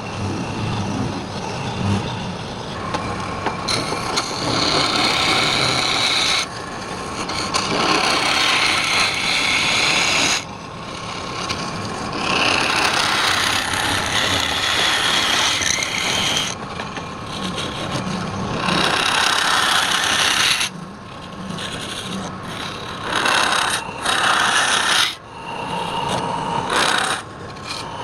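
Wood spinning on a lathe being cut or sanded with a rasping, scraping sound. It comes in passes of a few seconds each that stop abruptly, with a quieter steady sound between them.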